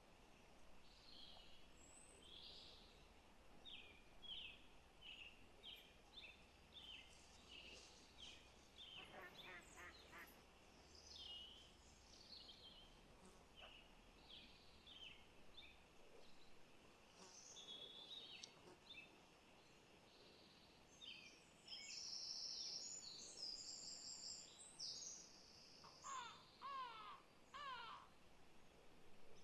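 Faint birdsong: many short, high chirps and calls from several birds, with a longer run of high notes and some falling calls in the last third.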